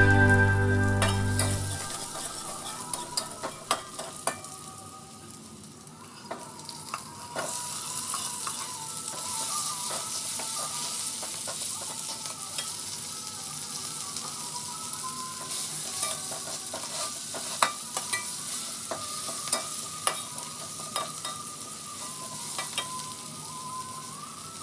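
Food sizzling as it is stir-fried in a pan, with a utensil clicking and scraping against the pan now and then. Background music fades out about two seconds in.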